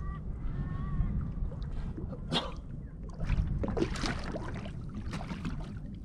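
Steady low rumble of wind and water around a small boat, with scattered clicks and knocks from handling gear in the boat.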